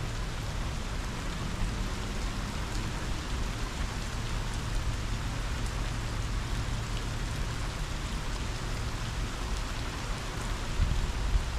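Heavy rain falling steadily under a low rumble of strong wind, which surges louder a little before the end.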